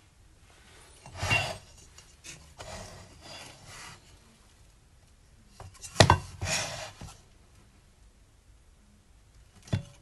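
Plastic blower fan assembly being handled on a tabletop: short spells of rubbing and scraping of the plastic housing, with a sharp knock about six seconds in and another near the end. The motor is not running.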